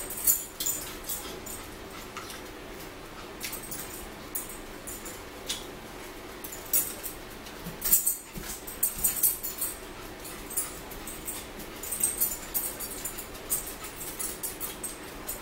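A small dog whining in repeated short bouts, with forks clinking and scraping on plates.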